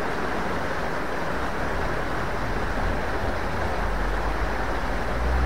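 Steady rush of a fast-flowing small river, with a low rumble building over the second half.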